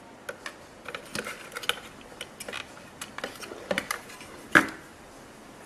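Scattered small clicks and taps from handling a circuit board and soldering tools as a capacitor is worked free of its solder, with one sharper knock near the end.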